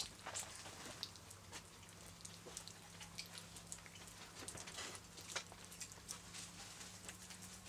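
Faint, irregular small clicks and soft taps of wet clay being pressed and squeezed between the hands, over a low steady hum.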